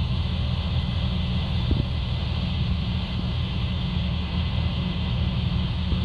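Case IH 9240 combine running steadily while shelling corn, a continuous low rumble of its diesel engine and threshing machinery, with wind noise on the microphone.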